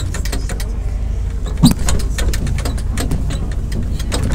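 Outdoor street ambience: a steady low rumble under a string of light clicks and knocks, with one sharp thump a little under two seconds in.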